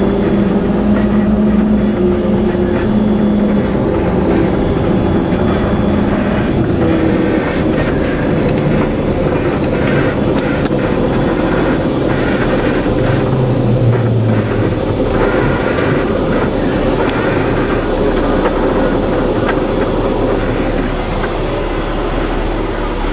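Engine and road noise inside the cabin of an MRAP armoured truck driving on a rough dirt road. A steady loud hum whose pitch shifts, with frequent small rattles and knocks from the vehicle's body.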